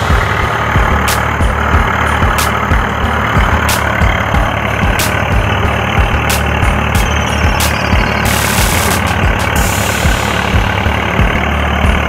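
Tractor diesel engine running steadily, with a low, even pulse.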